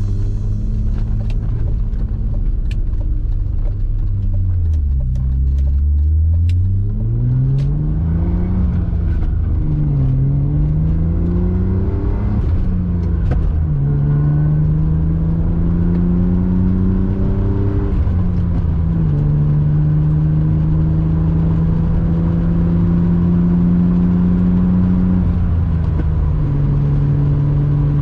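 BMW E36 M3 straight-six engine pulling through the gears: the revs climb and drop back several times as it is shifted up, then hold fairly steady near the end.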